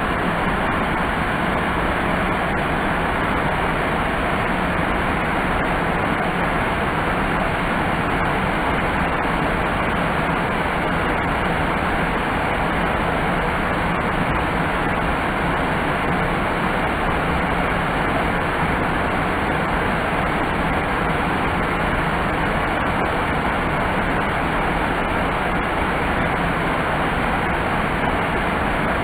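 Waterfall: a wide curtain of white water pouring over a rock ledge onto rocks, a loud, steady rush of falling water.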